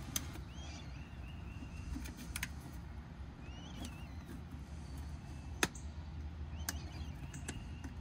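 Faint, scattered plastic clicks and taps as a plastic trim tool pries at a Land Rover Discovery 2 horn-button switch assembly, the sharpest click a little past halfway.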